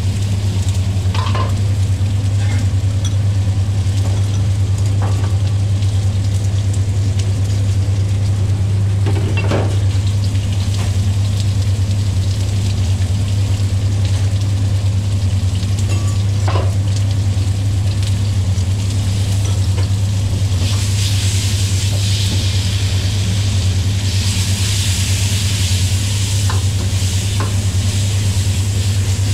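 Stir-frying in a wok: mushrooms, shrimp and vegetables sizzling while a metal ladle now and then knocks and scrapes against the wok. A steady low hum runs underneath, and the sizzling grows louder about two-thirds of the way through.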